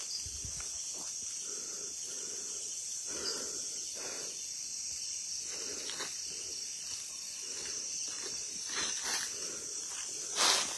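Night-time insect chorus, a steady high-pitched hum of crickets, with a few faint soft rustles.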